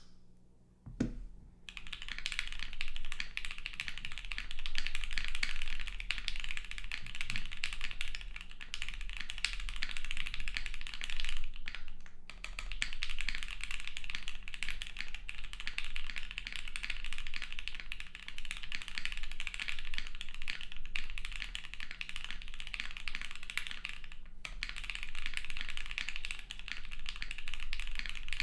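Fast typing on a Studio Kestra Nue mechanical keyboard, built plateless on a 1.2 mm PCB with Gateron Oil King linear switches and GMK Ki keycaps: a dense, continuous patter of keystrokes that breaks off briefly twice. A single knock comes about a second in, before the typing starts.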